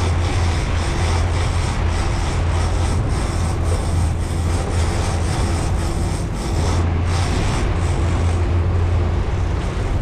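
Outboard motors of a World Cat 325CC catamaran running steadily with the boat underway: a low, even drone mixed with the rush of wind and the churning wake.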